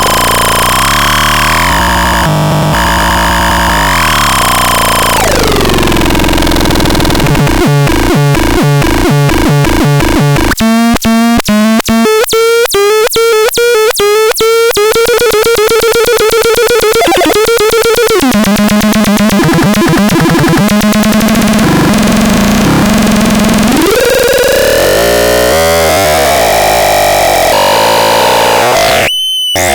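Loud, harsh synthesizer noise: dense electronic tones that slide down in pitch, then break into a rapid pulsing, then settle into a steadier low drone. The sound cuts out for a moment near the end.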